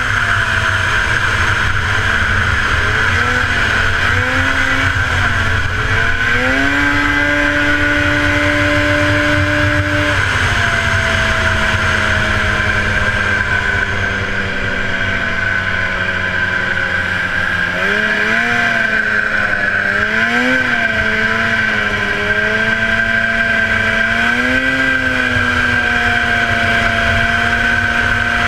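1977 Polaris TX-L snowmobile's two-stroke engine racing at high revs, its pitch dipping and climbing again several times with the throttle and holding steady in between, over a constant high hiss.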